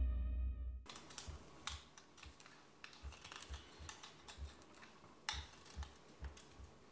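The intro theme music dies away about a second in. A knife then cuts and shaves a calligrapher's reed pen, giving faint, irregular clicks and scrapes.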